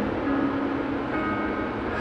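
Steady road noise of a moving car heard from inside, with music of held notes playing over it.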